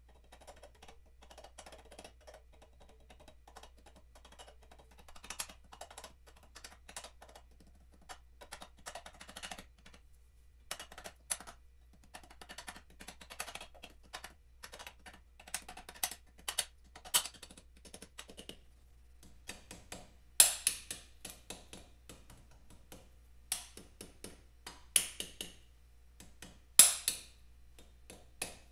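Socket ratchet clicking in quick runs as the cylinder head bracket nuts are wound on, with a few louder sharp metal clacks in the last third.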